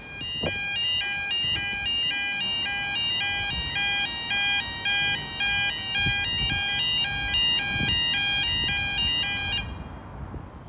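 Level crossing audible warning alarm sounding a rapid two-tone warble while the barriers lower. It cuts off suddenly about nine and a half seconds in, once the barriers are down.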